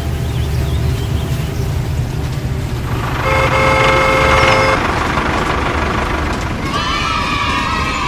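Train running with a steady low rumble. About three seconds in a horn sounds once for about a second and a half, and near the end a wavering, slightly falling whistle-like tone starts.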